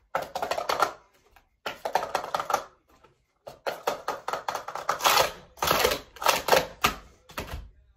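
Plastic sport-stacking cups clattering rapidly as they are stacked up into pyramids and swept back down. The sound comes as fast runs of light clicks and knocks with two short silent breaks early on.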